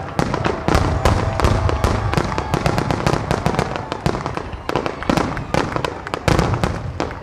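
Aerial firework shells bursting in a dense, continuous volley, many booms and crackling reports a second with a deep rumble under them.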